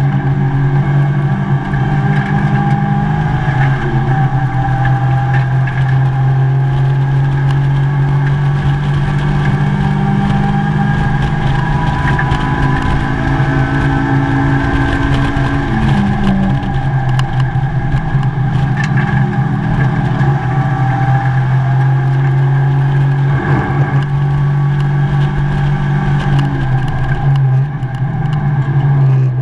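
Mazda MX-5 race car's four-cylinder engine heard from inside the cabin at racing speed, its note rising and falling as the car accelerates, changes gear and slows for corners, over a constant rush of road and wind noise.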